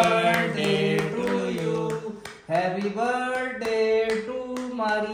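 A man's voice singing a slow melody of long held notes, in two long phrases with a short break about two and a half seconds in.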